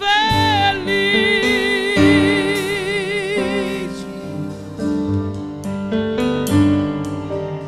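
Woman singing a Portuguese gospel line, holding one long note with wide vibrato for about four seconds over keyboard, electric bass and drums. The voice then drops out and the band plays on with keyboard chords.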